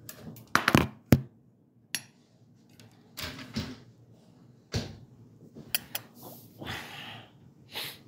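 Cereal being made: irregular clinks and knocks of a spoon and bowl with rustling handling noises between them. The sharpest, loudest clink comes about a second in.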